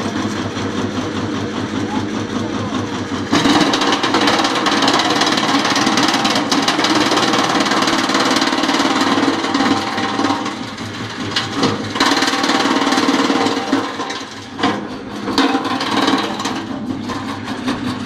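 Homemade two-knife drum wood chipper, driven by a 7.5 kW electric motor, chipping branches: a steady machine hum turns into a louder, continuous chipping noise about three seconds in. The noise dips briefly a few times in the second half.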